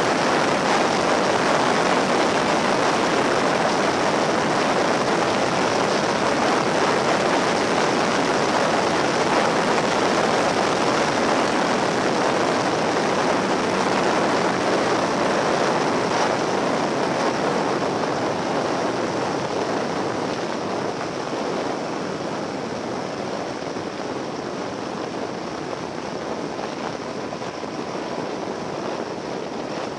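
Steady rush of wind and engine noise from a Yamaha XT1200Z Super Ténéré motorcycle at road speed, heard from on board. It eases off and drops in level about two-thirds of the way through as the bike slows.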